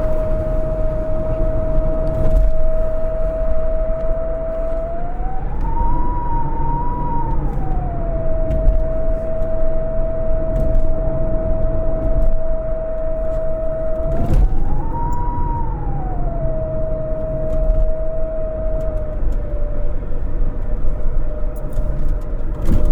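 AM radio tuned to 960 giving a steady whistling tone over a rumble of static with scattered crackles. The tone slides up in pitch and back down about a quarter of the way in, again about two thirds of the way in, and dips slightly lower near the end.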